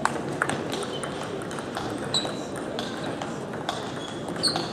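Table tennis rally: the ball clicks sharply off rubber paddles and the table several times at an uneven pace, some hits with a brief high ring. Under it runs the steady murmur of voices and other games in a large hall.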